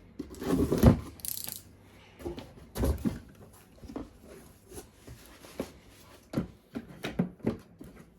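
Plastic toy guns and their packaging being handled: irregular clicks, knocks and rustles, with louder knocks about a second in and around three seconds in.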